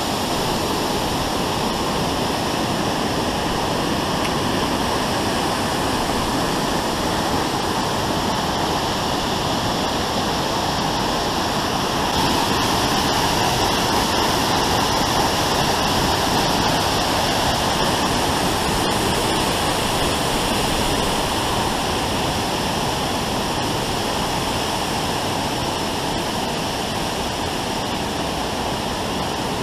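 Waterfall: a steady, loud rush of falling water, a little louder from about twelve seconds in.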